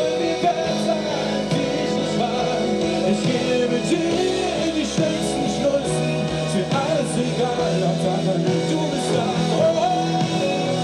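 Rock band playing live, with a male lead singer singing into a handheld microphone over the band.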